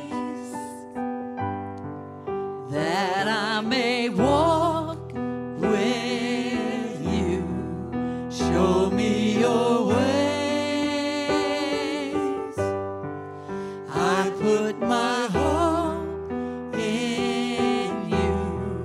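A small group of voices singing a slow worship song over electric keyboard chords, with long held notes sung with a wide vibrato.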